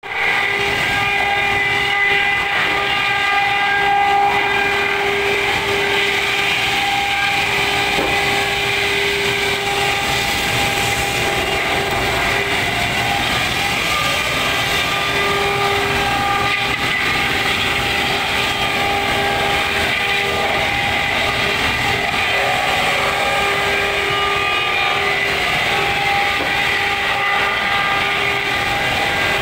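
Large industrial sawdust machine (wood crusher) with a 355 kW main motor running steadily: a loud, continuous machine din with several steady whining tones.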